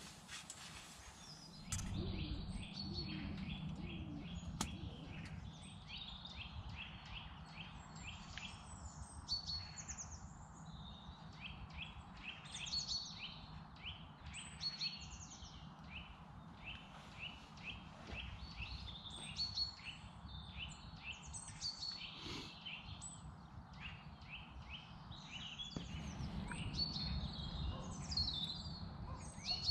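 Several small birds singing and chirping over and over, over a steady low background rumble.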